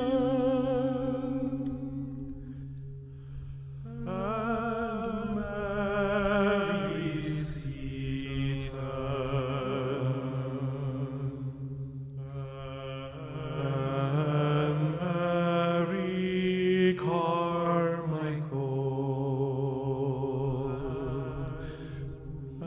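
A voice singing long, wavering notes in a slow chant over a steady low drone, with short breaks between phrases about three and twelve seconds in.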